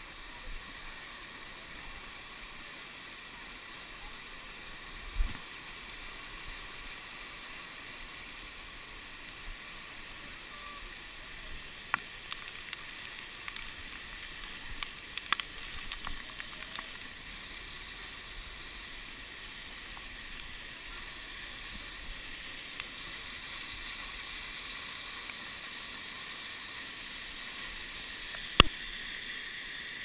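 Waterfall rushing steadily over rocks close to the camera, a little louder in the second half. A few sharp knocks cut through it, the loudest near the end.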